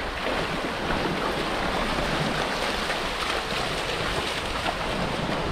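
Steady wash of small waves in shallow surf, with wind on the microphone.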